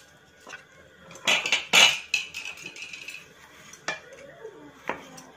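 The foil seal of an instant coffee jar being torn and peeled back, a loud crinkling rip about a second and a half in. Then two sharp clicks as a plastic measuring spoon knocks against the jar while scooping the coffee powder.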